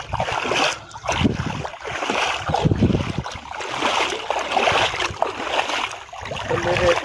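Shallow river water sloshing and splashing around a person's legs as he wades, in surges about once a second.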